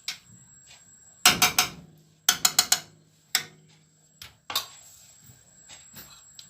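Kitchen utensils knocking against cookware: a quick run of three or four hard knocks, then a faster run of about five, then a few single knocks.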